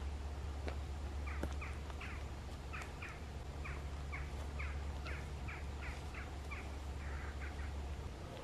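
A bird calling in a run of short, falling notes, often in pairs, about three a second, over a steady low hum.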